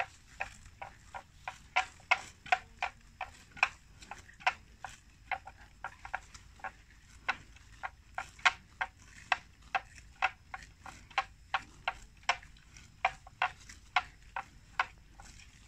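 Water buffalo cropping grass up close: a continuous run of crisp tearing snaps as their mouths rip off mouthfuls, about two to three a second at an uneven pace.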